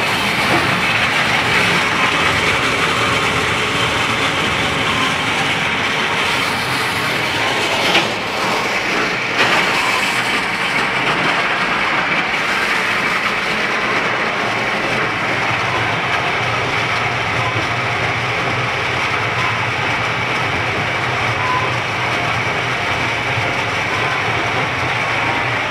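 A stone grist mill running: the millstones, gears and flat drive belts make a steady, loud, even clatter and rumble. Two sharp knocks come about eight and nine and a half seconds in.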